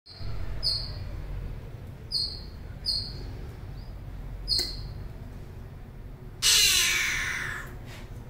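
Greater coucal giving four short, sharp, high-pitched calls, each a clipped note with a click-like start, spaced about a second apart. About six and a half seconds in comes the loudest sound, a harsh rushing hiss lasting about a second and fading away.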